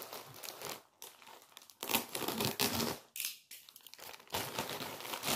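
Plastic mailer bag crinkling and tearing as it is opened by hand, in several separate bursts of rustling, the loudest near the end.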